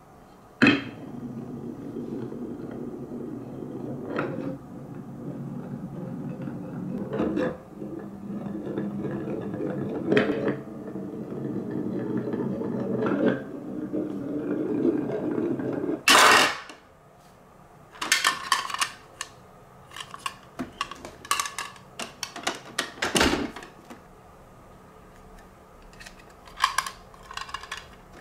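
Glass marble rolling along a wooden wave-shaped HABA track, a steady rumble with a light knock every three seconds or so. At about sixteen seconds it drops with a loud clack into the plastic bin of a toy garbage truck, followed by light clicking and clattering of hard plastic.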